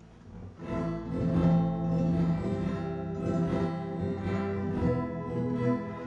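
Guitar music: plucked notes ringing over layered, sustained tones. The notes come in about half a second in, after a quieter held chord.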